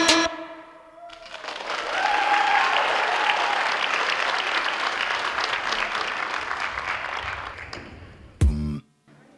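Audience applause after the music stops, rising about a second in and slowly fading away. Near the end a short, loud burst of music starts and cuts off.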